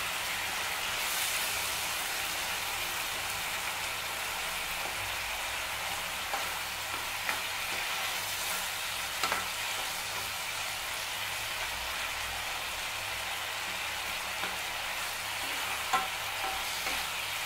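Chopped tomatoes and onions sizzling steadily in oil in a frying pan as they cook down soft, stirred with a wooden spatula, with a few light knocks of the spatula against the pan.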